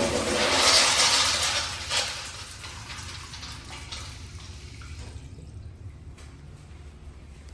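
A restroom fixture flushing: a loud rush of water for about two seconds, with a short surge near the two-second mark, then dying down to a low steady hiss as it refills.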